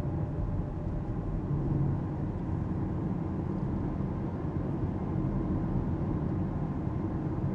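Steady in-cabin road and tyre noise of an Alpine A390 GT electric car driving along, a low rumble with a faint steady hum and no engine note.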